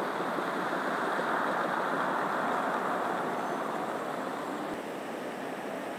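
Steady outdoor ambient rushing noise with no distinct events, easing slightly near the end.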